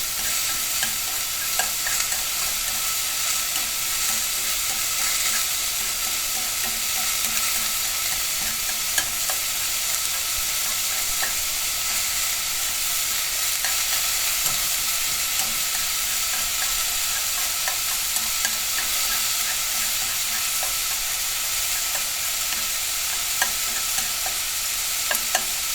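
Vegetables being stir-fried in hot oil: a steady, even sizzle with scattered small pops and crackles.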